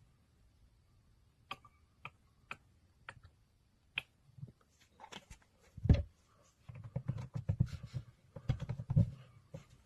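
Scattered sharp clicks and taps, then a heavy thump and a quick run of clicks and low knocks, like objects being handled; no motor is running.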